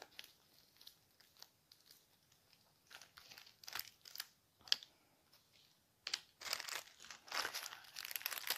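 Thin plastic zip-lock baggies crinkling as they are handled, in short scattered rustles that become denser from about six seconds in.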